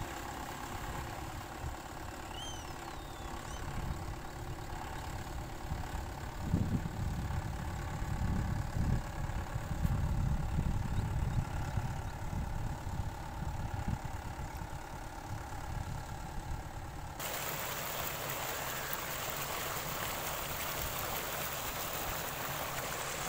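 Mahindra 595 Turbo tractor's diesel engine running under load as it drags a leveling board through a flooded paddy field: a low, uneven rumble. A bird chirps a few times about two seconds in, and about three-quarters of the way through a steady wind hiss on the microphone comes in suddenly.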